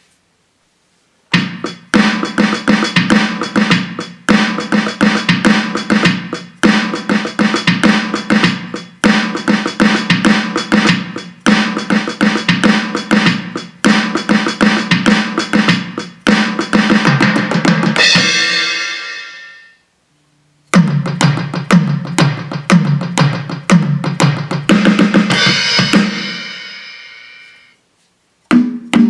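Drum patterns played through the Donner DED-50T electronic drum kit's preset kits: kick, snare and cymbal hits in a steady groove. The first passage ends in a long ringing cymbal about two-thirds through, then after a short pause a second passage starts with a different kit sound and also fades out on a cymbal.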